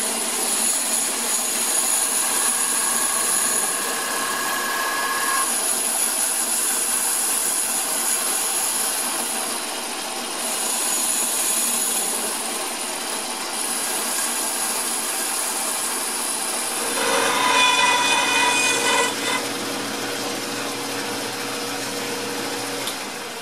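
Metal lathe cutting cast aluminum, a steady machining noise with a thin high whine. About 17 s in, a louder pitched ringing chatter sounds for about two seconds: boring-bar vibration, which leaves the bore rough.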